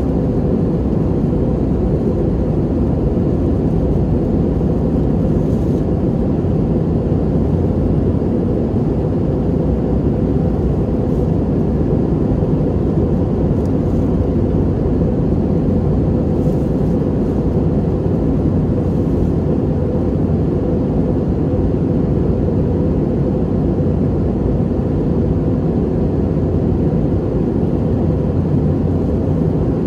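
Steady low roar inside an airliner cabin in flight: jet engine and airflow noise, unchanging throughout.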